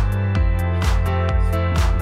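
Background music with a steady beat: a sharp drum hit about once a second over sustained bass and pitched notes.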